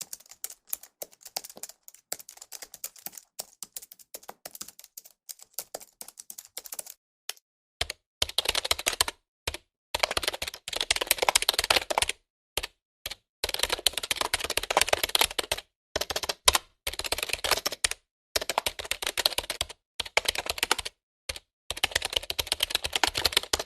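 Typing on a computer keyboard. For the first several seconds the clicks are quieter and scattered; from about eight seconds in they come as fast, louder runs of typing a second or two long, broken by short pauses.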